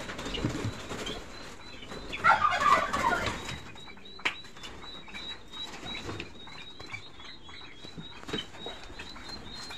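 Golden pheasants stirring in a wire-mesh aviary: a short flurry of bird noise about two seconds in, then scattered light knocks and rustles, with a faint thin high tone running through.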